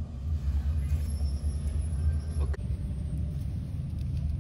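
Low, unsteady rumble that eases off about two and a half seconds in.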